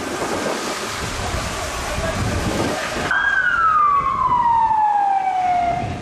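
Emergency vehicle siren: about halfway in it sounds and its pitch falls slowly over nearly three seconds. Before it, a noisy background with no clear source.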